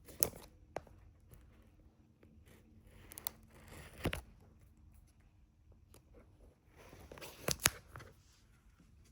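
Plastic shrink wrap being torn and crinkled off a sealed phone box, in scattered crackles with sharper snaps about four seconds in and a louder pair near the end.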